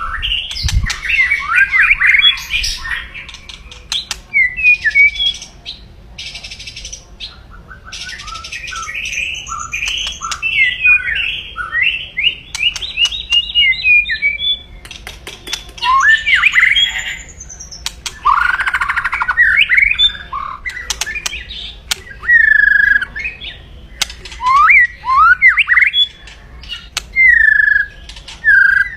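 White-rumped shama (murai batu) giving aggressive 'kretekan' calls: harsh crackling rattles and rapid chattering notes, with short clear whistled notes repeated near the end. This agitated, fighting-mood calling is used to rouse rival shamas.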